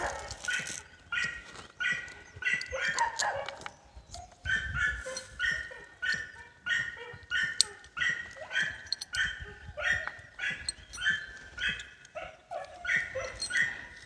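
A dog barking over and over, about two barks a second, with a short break around four seconds in.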